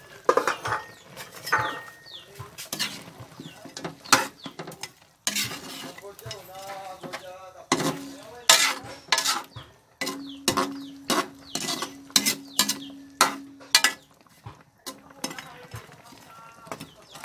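Metal spatula scraping and knocking against a wok in irregular strokes as braised pork hocks are stirred in their sauce, with a steady low hum underneath from about three seconds in.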